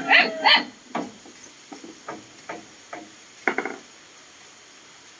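Two loud short calls at the very start, then a series of sharp knocks about two a second, with a quick flurry of knocks about three and a half seconds in: hammering on wood at a building site.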